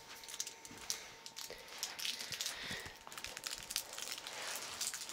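Faint, irregular crinkling and small crackles of a plastic-wrapped candy pop being handled in a small child's fingers.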